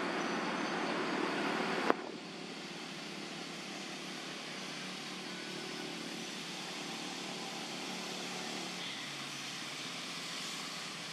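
Steady outdoor background hiss, with a sharp click about two seconds in after which the hiss drops quieter.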